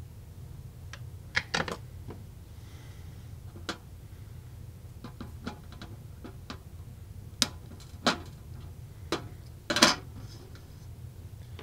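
Flush side cutters snipping the leads of a freshly soldered transistor on a circuit board, among scattered sharp clicks and taps of small tools being handled on a workbench, about eight in all with the loudest near the end. A low steady hum runs underneath.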